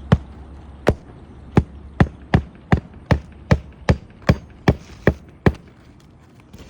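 Hammer driving roofing nails into an asphalt shingle: about a dozen sharp strikes at a steady pace of two or three a second, stopping near the end.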